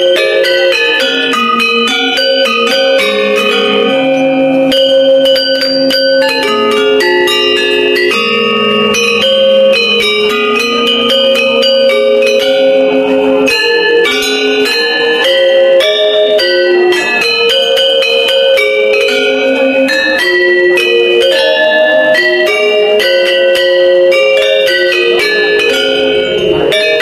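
Balinese gender ensemble: bronze-keyed metallophones struck with two disc-headed mallets per player, playing dense, rapid interlocking patterns of ringing notes at an even loudness.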